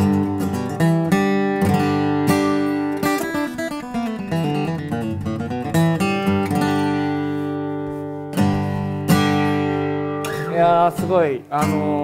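Taylor AD27e mahogany-top acoustic guitar played solo, chords struck and left to ring, with a run of quicker single notes in the middle.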